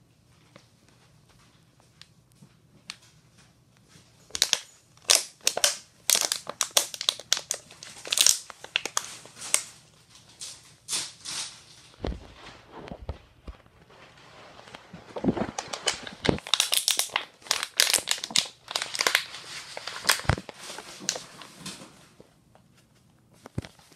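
A thin plastic water bottle crinkling and crackling as a baby squeezes and mouths it. It comes in irregular bursts, faint for the first few seconds and then busy.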